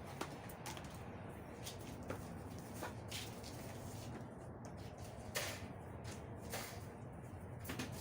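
A handful of light, scattered clicks and knocks, about six spread over the stretch, over a low steady hum.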